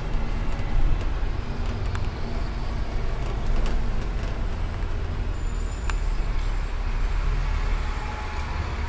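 Steady low rumble of outdoor city noise, like distant traffic, with a few faint clicks.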